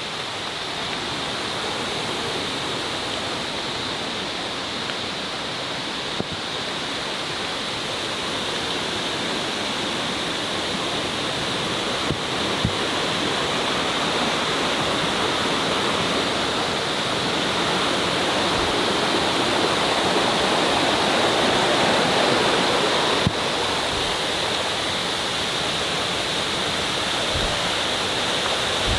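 Steady rush of falling water from a waterfall, even and unbroken throughout.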